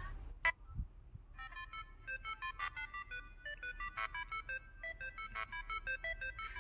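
A Samsung SHW-A210S phone ringtone: a quick melody of short, separate electronic notes that starts about a second and a half in, after a single click.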